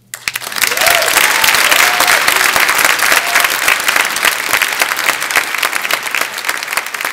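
Audience applause starting suddenly and swelling within about a second to dense, steady clapping, with a few cheering whoops in the first few seconds.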